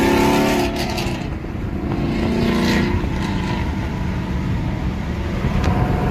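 Engine and exhaust rumble of a late-model Ford Mustang driving alongside in traffic, heard from inside another car with road noise. The rumble eases a little about a second in, then builds again.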